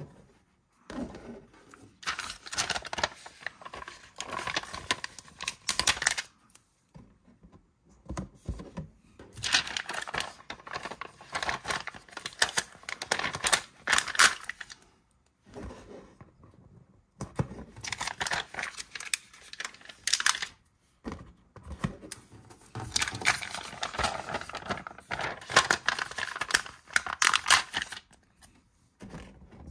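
Repositionable stickers being peeled off their plastic backing sheet and handled, with crackling, crinkling noise in four stretches of a few seconds each and short quiet pauses between them.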